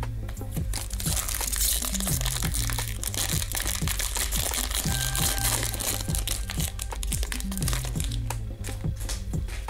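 Shiny foil trading-card pack wrapper crinkling as it is handled and torn open, loudest for the first several seconds, over background music.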